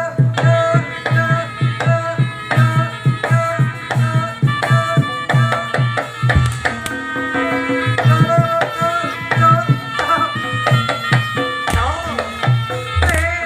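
Javanese jaranan ensemble music: kendang hand drums beating a fast, steady rhythm under a sustained melody line.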